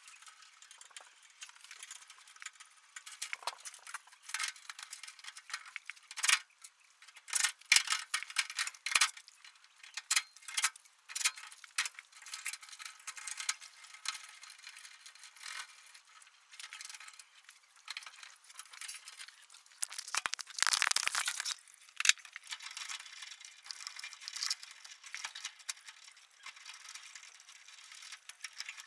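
Irregular small clicks, rattles and scrapes of hands working wires, spade connectors and a screwdriver among a furnace's control-board wiring, with a longer rustling scrape about two-thirds of the way through.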